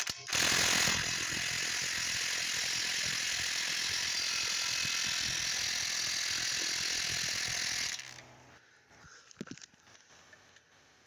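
Hitachi impact driver hammering on a car wheel lug nut through a 21 mm impact socket for about eight seconds, then stopping; the nut doesn't seem to move.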